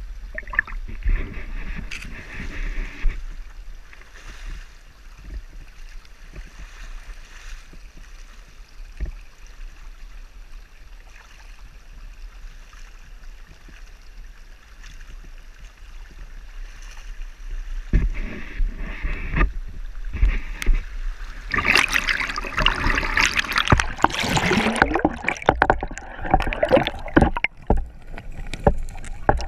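Creek water lapping and sloshing against a camera held at the surface. From about two-thirds of the way in it turns to loud, irregular splashing and churning as the camera dips under the water.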